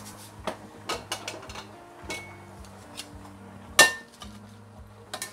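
Salad servers tossing a salad in a ceramic bowl, knocking and clinking against the bowl several times; the loudest clink, about four seconds in, rings briefly.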